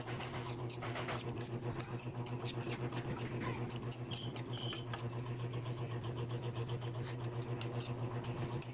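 Metal spoon clicking and scraping against an aluminium wok as a chicken-and-vegetable stir-fry is stirred, over a steady low hum.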